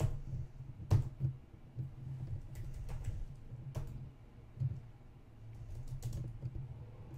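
Computer keyboard typing: scattered keystrokes at an uneven pace, a few louder key strikes among them, over a low steady hum.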